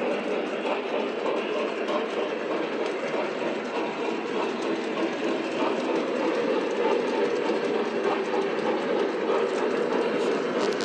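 Several model trains running at once on a multi-level layout, making a steady running noise of wheels and motors on track.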